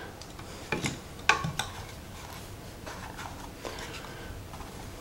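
Hands handling a plastic action figure and its small accessories: a few light clicks and taps in the first couple of seconds, then fainter handling noise.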